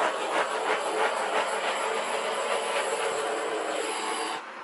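Handheld torch flame running over wet acrylic pour paint to pop air bubbles: a steady hiss with irregular crackling that cuts off suddenly about four seconds in.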